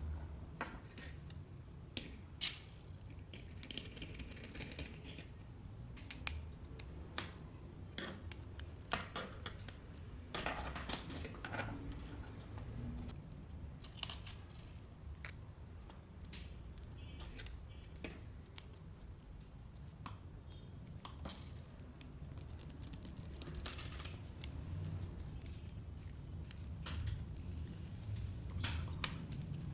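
Irregular small clicks and taps as wooden robotic-arm kit pieces, small screws and nuts are handled and fitted together on a tabletop, with a few brief rubbing sounds between them.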